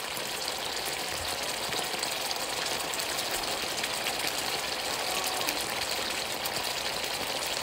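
Hot pot broth boiling hard in an electric pan: a steady bubbling hiss with many small pops.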